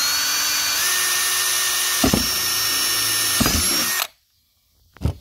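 Power drill boring a 1/4-inch hole through 3/4-inch PVC pipe: the motor whines steadily at speed, with a couple of short knocks as the bit works through, dips in pitch briefly near three and a half seconds, and cuts off about four seconds in. A single click follows near the end.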